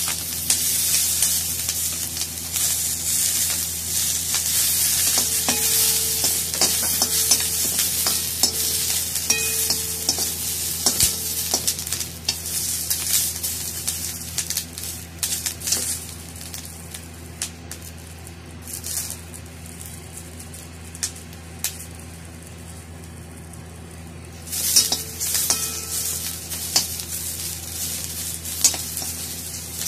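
Chopped green capsicum frying in hot oil in a steel kadai: a loud sizzle that dies down after about fifteen seconds and flares up again near the end. Short clinks and scrapes of a metal slotted spoon stirring against the pan run through it.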